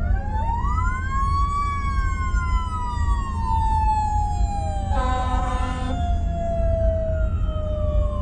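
Emergency-vehicle sirens wailing, two or more at once, their pitches slowly rising and falling and crossing each other as they pass, heard from inside a car. About five seconds in there is a horn blast lasting about a second, and a steady low rumble runs underneath.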